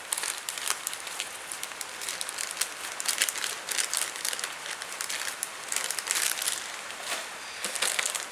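Plastic crinkling and clicking, with many irregular small crackles and taps, as model kit parts and their packaging are handled.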